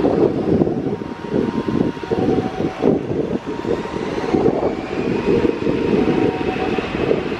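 Twin-engine jet airliner at takeoff power, beginning its takeoff roll and heard from behind: a loud, uneven rumble, with a high engine whine coming in about halfway through.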